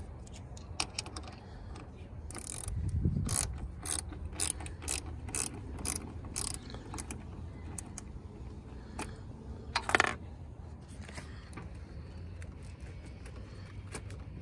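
Small Wera socket ratchet clicking as it backs off the 10 mm nut on a car battery's positive terminal clamp, a run of clicks about two a second, then a few more. A louder knock about ten seconds in.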